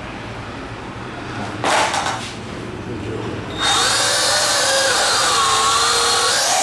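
Toy quadcopter's four small electric motors and propellers spin up suddenly a little past halfway and run with a loud, high whine whose pitch wavers and rises near the end. A short rattle comes about two seconds in, before the motors start.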